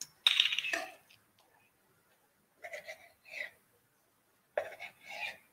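A few short, breathy vocal sounds from a man without clear words: a louder one just after the start, then two fainter ones later.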